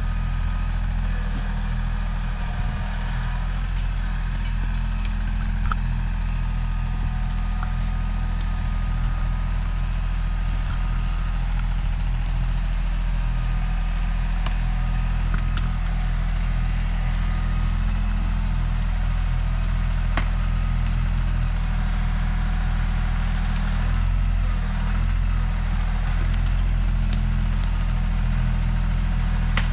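Bobcat compact tractor's engine running steadily as it drives up, getting louder in the last few seconds as it comes closer.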